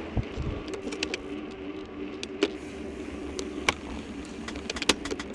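A bicycle riding along a paved path: a steady hum of tyres and moving air, with scattered sharp clicks and rattles from the bike.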